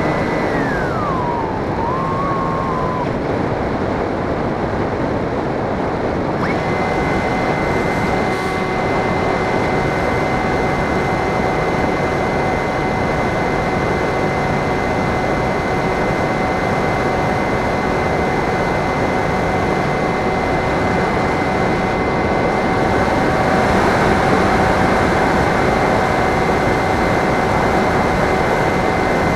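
Onboard sound of an RC FPV plane in flight: a constant rush of wind on the microphone. The electric motor's whine drops in pitch and cuts out about a second in, then comes back about six seconds in and holds a steady pitch.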